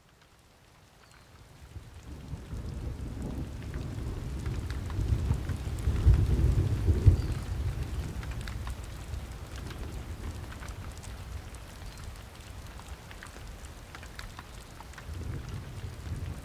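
Rain falling with a deep, rolling rumble of thunder that fades in, swells loudest a little under halfway through, then eases and builds again near the end.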